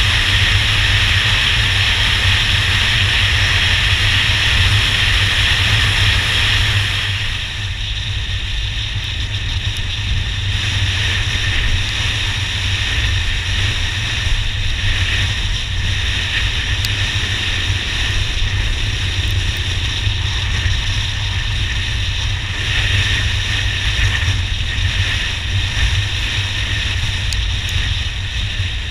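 A motorcycle being ridden: engine noise and wind buffeting on the microphone, steady throughout. About seven seconds in, the higher hiss of wind and road drops and stays lower.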